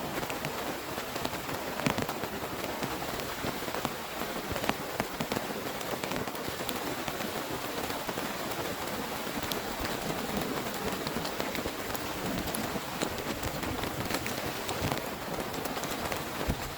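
Heavy rain falling steadily, with many sharp taps of single drops striking a nearby surface.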